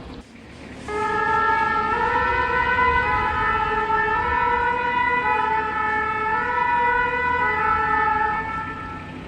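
Emergency-vehicle two-tone siren, alternating back and forth between two pitches, starting about a second in and fading away shortly before the end, over low traffic rumble.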